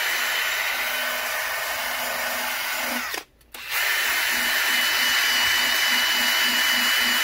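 DeWalt 20V cordless drill spinning a wool polishing pad at high speed, buffing compound into a headlight lens. The drill stops briefly about three seconds in, then runs again a little louder.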